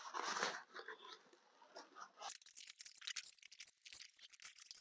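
Corrugated cardboard being rolled up tightly by hand on a tabletop: faint rustling and scraping, then a run of small crackles from about two seconds in.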